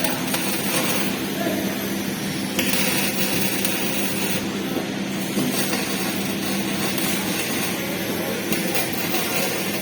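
Electric arc welding: the arc crackles and sizzles steadily, with a low hum underneath that stops about seven seconds in.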